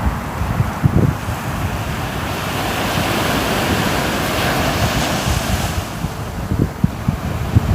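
Sea surf: a wave washes in, swelling over a few seconds, and then draws back. Wind buffets the microphone with low, uneven thumps throughout.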